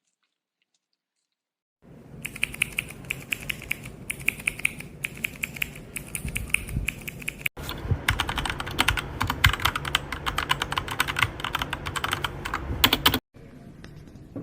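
Fast typing on a mechanical keyboard, heard as two separate takes. The first has a high ringing tone on the keystrokes. The second, starting abruptly about halfway through, is louder and denser and stops suddenly.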